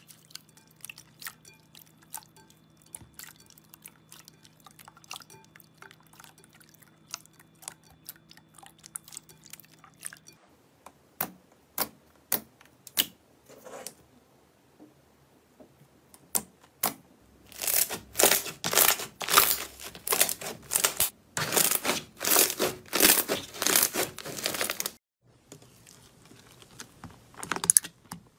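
Slime being squeezed, stretched and poked by hand, making wet sticky clicks and crackles. Past the middle comes a long run of loud, rapid crackling pops, then quieter squishing near the end.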